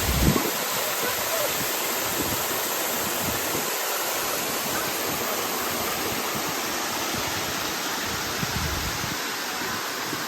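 Water of the Uracher Wasserfall rushing and splashing in a steady, even wash of noise.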